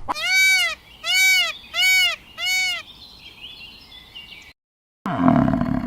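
An animal calling four times, each a short, clear cry that rises and falls in pitch, about three-quarters of a second apart. After a brief silence a different, rougher sound begins near the end.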